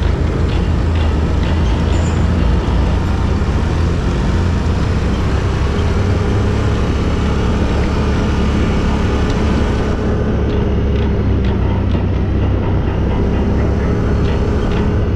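Quad bike (ATV) engine running steadily as it rides over a dirt track, heard from the rider's own machine, a continuous low drone with no clear revving.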